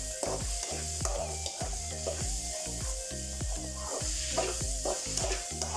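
Vegetable fried rice frying in a pan, with a steady sizzle and a spatula stirring and scraping the pan in repeated strokes about twice a second as tomato and green chillies are mixed in.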